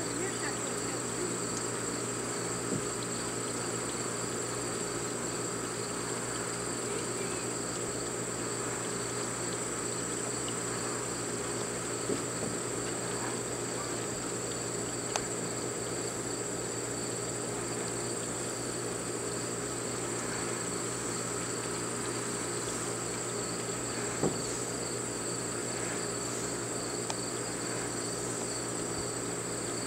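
A steady insect chorus, a continuous high trill over a low steady hum, with a few brief faint knocks.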